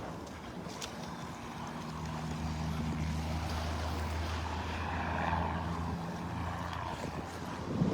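Low engine drone of a passing motor, swelling in about a second and a half in and fading out near the end, over wind and surf.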